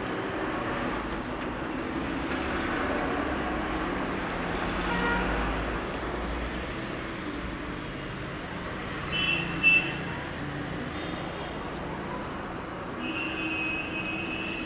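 Street traffic noise: a steady wash of passing vehicles that swells and fades, with a short high-pitched tone about ten seconds in and a longer one near the end.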